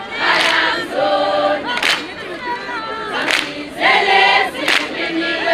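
A group of girls singing a traditional Zulu song a cappella, with sharp hand claps about every second and a half.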